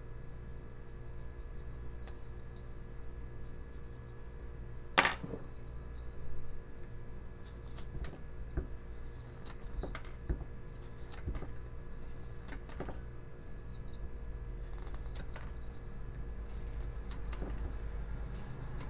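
Carving knife slicing into a basswood block by hand: irregular short cuts and snaps as chips split off, with one sharp knock about five seconds in, over a steady low hum.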